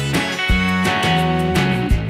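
Background music led by guitar, with a low drum thump about every second and a half.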